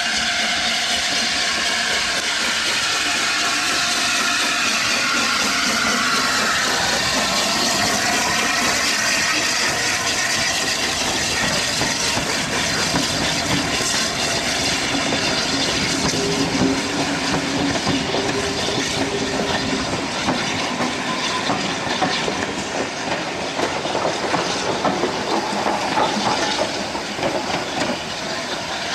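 Steam locomotives hauling passenger coaches past: a steady hiss of steam and exhaust with the clatter of wheels over rail joints, with more sharp clicks in the second half.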